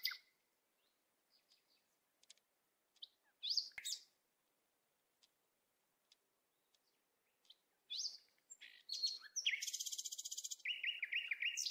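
Small birds chirping: a few short, scattered high calls, then about two-thirds of the way in a rapid high trill that runs into a fast series of repeated notes.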